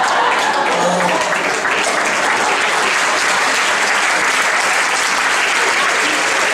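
Live audience applauding steadily in a large hall.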